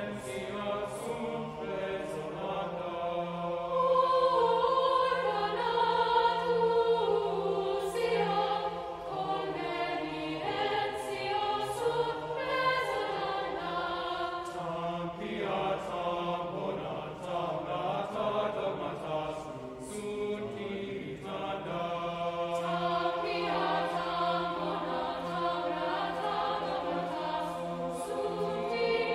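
Mixed-voice high school choir singing, swelling louder about four seconds in.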